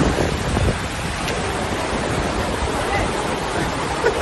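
Shallow mountain stream rushing over rocks in a steady wash of water noise, with a few low rumbles near the start.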